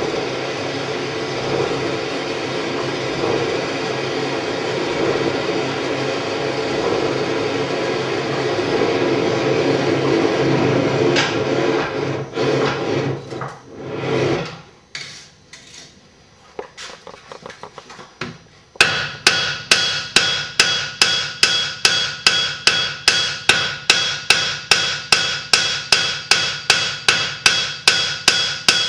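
Coal forge's air blast making a steady rushing noise, which stops about 14 seconds in. After a few faint knocks, a hand hammer strikes the hot iron on the anvil in a steady rhythm of about three blows a second, flattening the front edge of an arrowhead socket.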